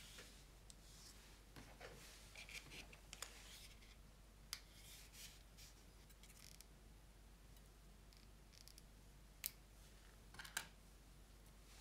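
Soft rustling and light clicks of cables being handled, then near the end two sharp snips about a second apart as a thin nickel strip is cut with hand cutters.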